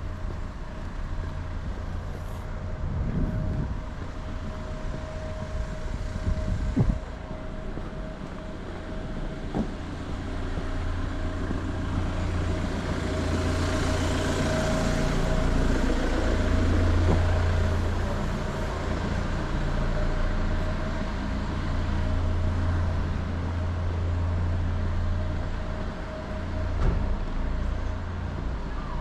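City road traffic: a steady low engine rumble with a constant hum, swelling as a vehicle passes about halfway through, with a few brief knocks.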